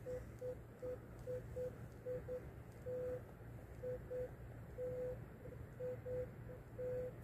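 Metal detector giving short single-pitch beeps, irregularly spaced with a few held longer, as it is swept back and forth over a buried target. The signal reads as a 13 or 14 target ID, which the detectorist takes for a nickel.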